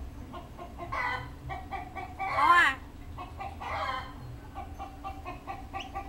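Common hill myna calling: a run of short, repeated pitched notes, with one loud call that bends up and down in pitch about halfway through.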